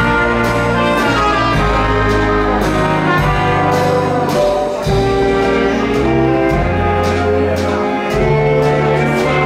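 Dance band playing a jazz tune: trumpets and trombone carrying the melody over a bass line and steady drum and cymbal beats.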